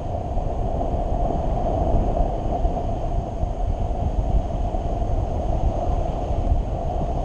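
Steady wind noise from air rushing past the camera's microphone on a paraglider in flight.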